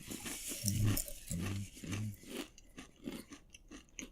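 Tortilla chip being crunched and chewed, with a run of quick crisp crunches in the second half. About a second in, three short closed-mouth hums break in over the chewing.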